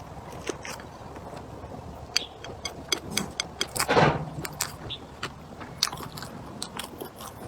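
Close-up chewing and biting of a person eating, with many short wet mouth clicks and one louder mouth sound about four seconds in.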